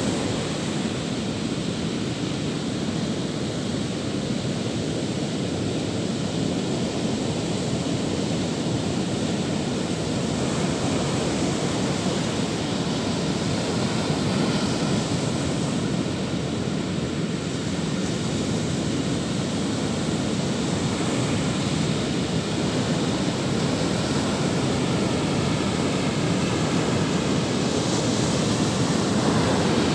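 Surf breaking on a sandy beach: a steady, deep wash of waves with no pauses.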